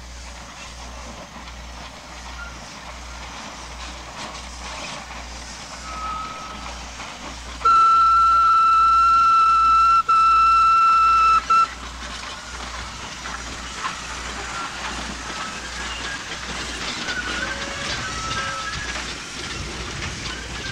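Steam locomotive whistle sounding one long steady blast of about four seconds, with a brief break in the middle. It sounds over the running noise of the passing train.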